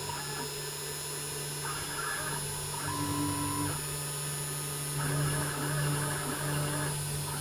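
CNC mill machining a panel: a steady low hum with motor whines that start and stop every second or so at different pitches as the axes move.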